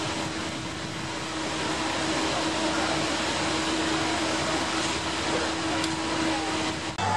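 A steady rushing noise with a faint, even hum underneath.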